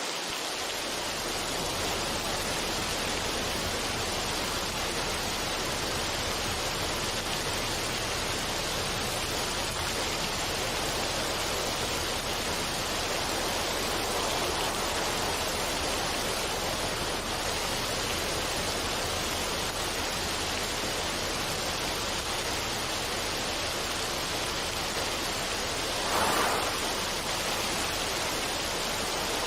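Steady rushing water, an even wash of sound that swells briefly near the end.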